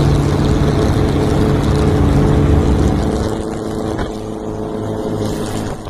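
Classic Volkswagen Beetle's engine running as the car drives along, with road and wind noise. About three seconds in the engine eases off and the sound grows quieter.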